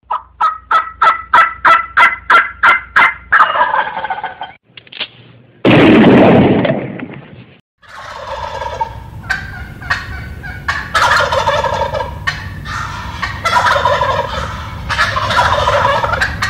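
Wild turkey calls: a quick run of about a dozen evenly spaced yelps, a sudden loud blast about six seconds in, then repeated gobbling from toms.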